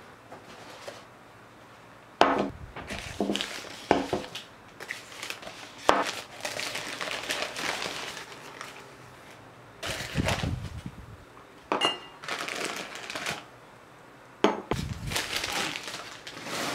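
Crumpled newspaper rustling and crinkling in bursts as glass cups are unwrapped from it, starting about two seconds in, with a few sharp knocks of glass being set down on a table.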